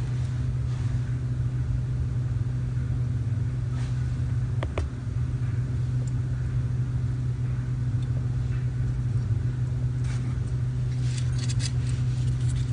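Steady low electrical-sounding hum with a rumble beneath it, as of a fan or air-conditioning unit running in the room. A few faint light ticks and clicks come near the end.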